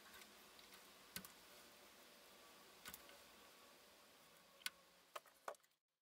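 Faint, sharp clicks of wire cutters and hand tools working on wiring, about five over a few seconds, then the sound cuts off suddenly near the end.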